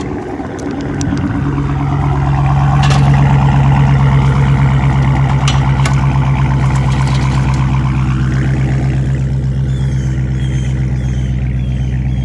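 Car engine running, its pitch rising slightly about a second in and then holding steady.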